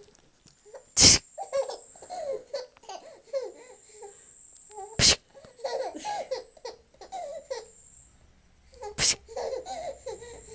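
A baby laughing in runs of short giggles, three times over. Each run comes just after a sharp, loud thump, about four seconds apart.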